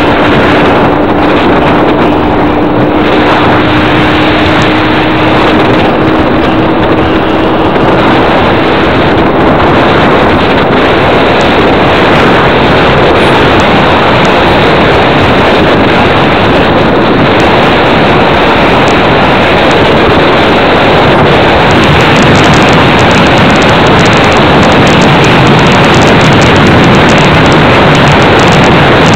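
Loud, steady rushing noise, like a vehicle in motion with wind on the microphone. A faint steady tone rises slowly in pitch over the first third, then fades.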